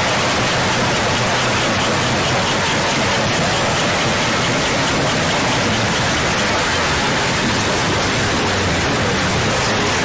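A loud, steady hiss of noise, like static or rushing rain, that stays even and unchanging throughout.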